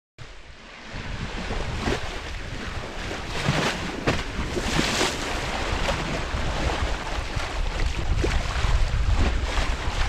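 Wind buffeting the microphone over the rush and splash of open sea water, with louder swishes of water a few seconds in.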